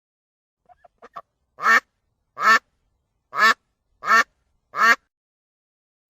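Duck quacking: a few soft short notes about a second in, then five loud quacks, about one every three quarters of a second.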